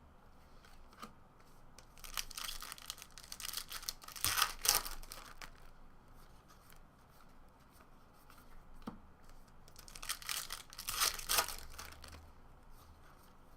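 Trading-card pack wrappers being torn open and crinkled by hand, in two stretches of crackly ripping a few seconds apart.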